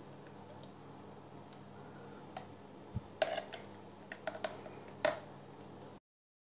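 A few light clicks and taps of kitchen handling over a low steady hum; the sound cuts out completely near the end.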